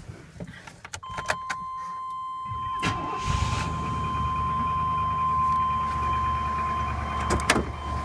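1999 GMC Suburban's 5.7 L Vortec V8 cold-started: a few clicks and a steady high tone from about a second in, brief cranking, then the engine catches about three seconds in and idles. The loud tick heard on this cold start is one that some would call piston slap and some rockers; the owner takes it for piston slap, as it fades once warm.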